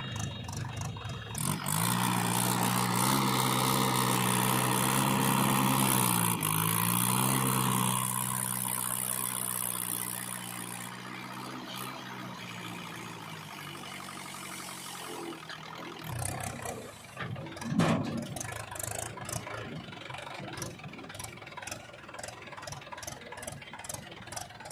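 Heavy diesel machinery engine running steadily, its pitch dipping briefly about six seconds in and then recovering. It drops to a quieter running sound at around 16 s, with a single knock a little later and a fast rhythmic clatter after that.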